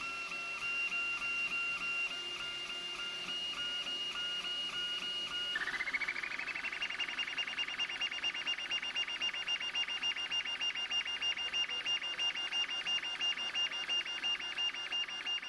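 3D printer stepper motors whining as the print head zigzags back and forth, the tone dipping in an even rhythm at each change of direction. About a third of the way in, the whine glides up to a higher pitch and the strokes come faster and louder as the printer runs at full speed.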